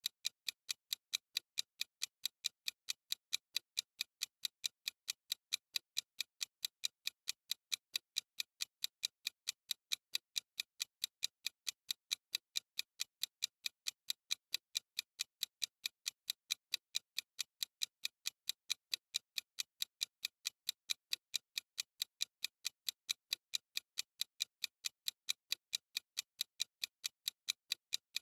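Clock-ticking sound effect of a countdown timer: sharp, high, even ticks at a steady rate of several a second, unchanging throughout.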